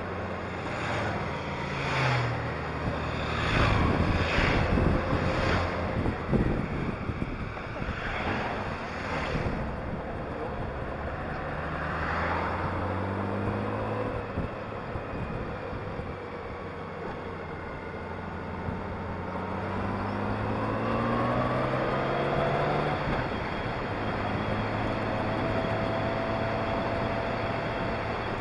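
Honda Gold Wing motorcycle engine running on the move, its note dipping and rising with speed and climbing for a few seconds about twenty seconds in. Rushes of wind noise hit the microphone several times in the first ten seconds.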